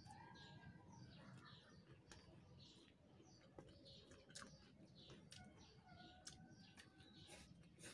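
Near silence with faint bird chirps repeating in the background and a few soft clicks.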